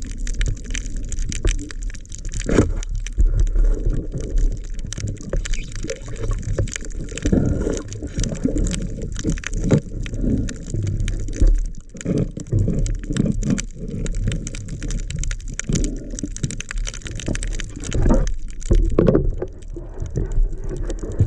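Muffled, irregular sloshing and gurgling of water around a camera held underwater, with frequent short knocks and crackles.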